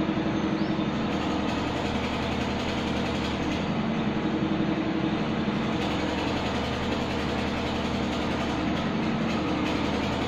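Steady mechanical running noise with a low hum, unchanging throughout.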